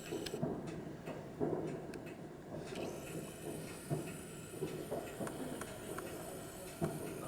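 Distant fireworks going off: irregular pops and bangs, a few sharp ones spaced a second or more apart, over steady background noise.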